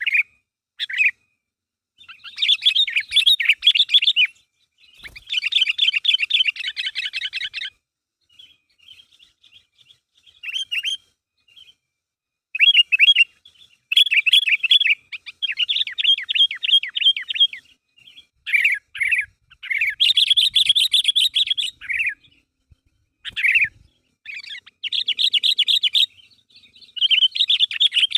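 Sooty-headed bulbul singing lively, in repeated bursts of rapid chattering notes separated by short pauses. This is the calling song used to provoke other bulbuls into answering.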